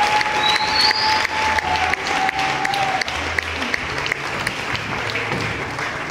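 Audience applauding, a dense patter of many hands clapping, with a single held tone riding over it for the first three seconds.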